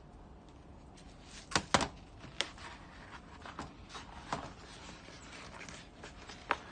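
Rolled brown cardboard wrapping being unrolled and pulled apart by hand: rustling with a few sharp crackles, the loudest pair about one and a half seconds in and another near the end.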